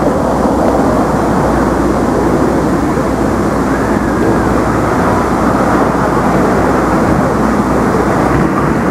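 A steady, loud rushing roar of outdoor background noise that holds level throughout, with no speech.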